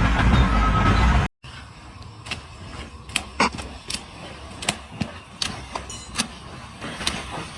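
A loud, deep rumbling sound that cuts off abruptly about a second in, followed by a quieter stretch of scattered sharp clicks and knocks at irregular intervals.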